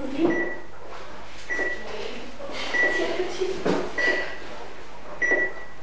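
Operating-theatre heart monitor beeping a steady pulse: five short, high, identical beeps, about one every 1.2 seconds, with some handling noises between them.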